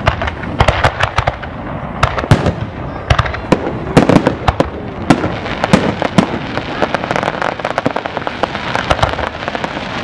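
Aerial fireworks display: many shells bursting in loud, irregular bangs, some in quick clusters, over a continuous background rumble and crackle. The bangs come thickest a few seconds in and thin out toward the end.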